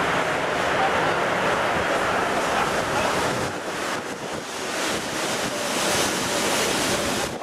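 Steady rushing noise of strong wind buffeting the microphone in heavy rain, with no clear engine tone standing out.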